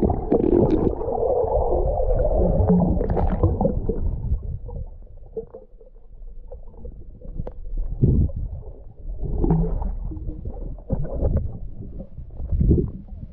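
Underwater sound: muffled low rumbling and gurgling of moving water and bubbles, heaviest in the first few seconds, with scattered knocks.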